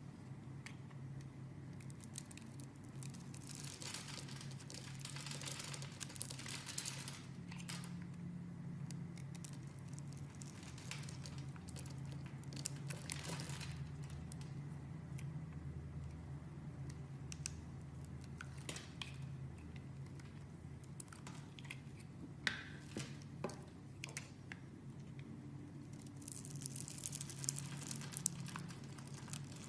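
A blade cutting and scraping through bar soap: crisp crunching, scraping strokes come in several runs, with a few sharp clicks, over a steady low hum.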